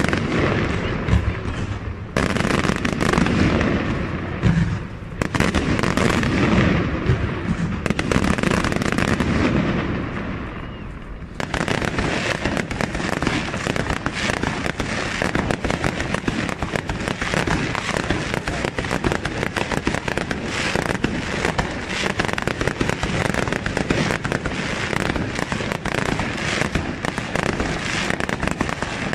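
Fireworks display: aerial shells bursting in rapid, overlapping booms. About eleven seconds in this changes abruptly to a dense, unbroken crackle of quick-firing reports that carries on steadily.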